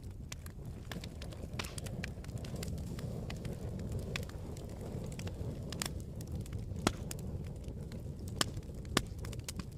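Campfire burning with a steady low rumble and irregular sharp crackles and pops, the loudest three pops coming in the second half.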